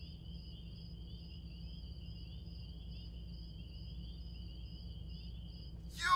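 Quiet, steady cricket chirping in two high pulsing tones over a low hum. Right at the end a loud sound with sliding pitch cuts in suddenly.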